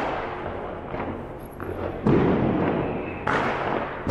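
Fireworks and firecrackers going off: several sudden bangs, the loudest about two and three seconds in, each followed by a long echoing tail.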